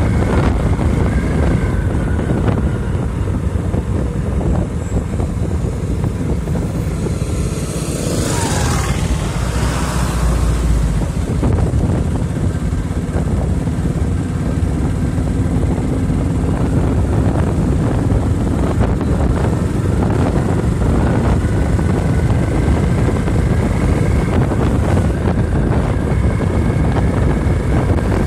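Motorcycle engine running at steady road speed, mixed with wind rushing over the handlebar-mounted microphone. A louder rushing burst comes about eight to ten seconds in.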